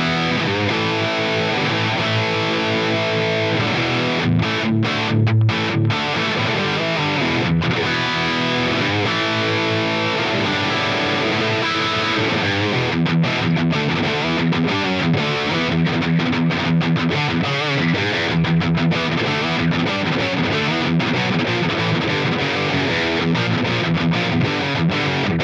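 Electric guitar played through the Line 6 POD Go's PV Panama amp model, a simulation of a Peavey 5150, giving a hard, high-gain distorted metal tone. The riff has many short stops, getting choppier in the second half.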